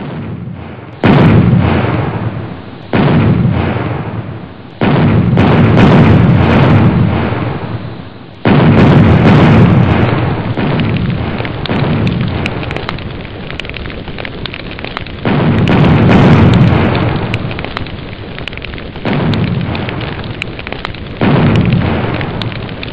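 Explosion sound effects for a galleon blowing up under cannon fire: a string of heavy booms, each starting suddenly and dying away in a long rumble. The booms overlap so the rumbling never stops.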